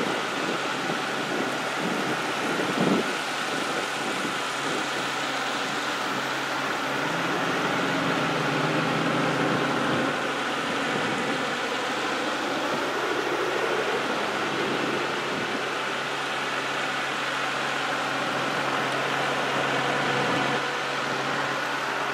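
A steady line of pickup trucks and cars passing one after another, with engines running and tyres hissing on the road. A short thump about three seconds in.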